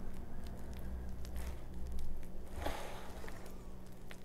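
Silicone spatula spreading and smoothing thick mashed potatoes in a metal baking pan: soft squishing and scraping, with two louder strokes around the middle.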